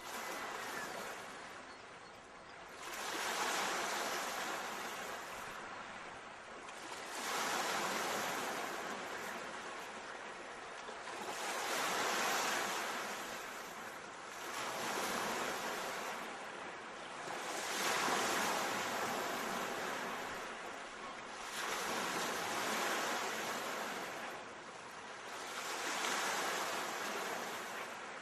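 Sea waves breaking and washing up the shore, one after another about every four seconds, each swelling to a hiss and then fading.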